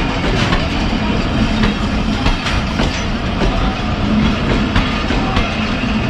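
Pakistan Railways passenger coaches rolling past at close range as the train pulls out. Their wheels click irregularly over the rail joints above a steady, loud rumble.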